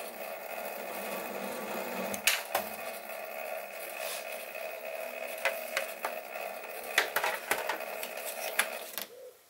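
Sieg SC3 mini lathe running slowly at 90 rpm while a parting tool cuts through a cast-iron blank: a steady motor whine with scattered sharp clicks from the cut. The low speed is set to stop the heavy vibration met when parting off. The machine sound falls away about a second before the end.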